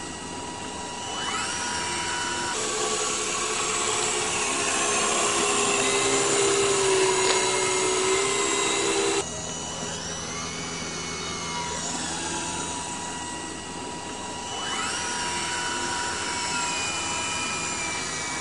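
A motor running at high speed with a whine, its pitch rising and levelling off three times, with an abrupt cut about nine seconds in.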